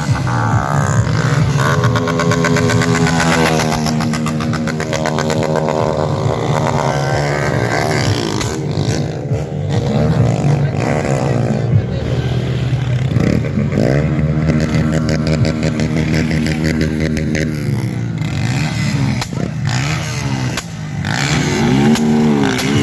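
Motorcycle engine revved hard at high rpm with a deep rumble, its pitch climbing and dropping again and again.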